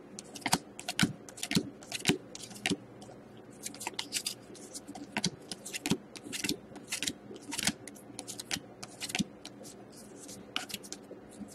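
A stack of shiny foil hockey trading cards being flipped through one at a time in the hands: a run of short, crisp card-on-card slides and flicks, a few a second.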